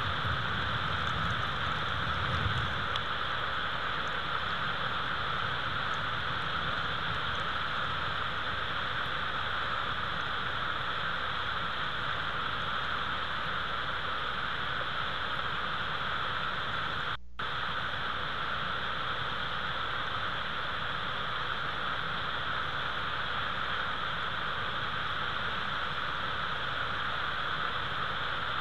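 Steady, even hiss from an outdoor nest-cam microphone during a snowstorm, with a low rumble in the first few seconds. It cuts out for a moment about seventeen seconds in.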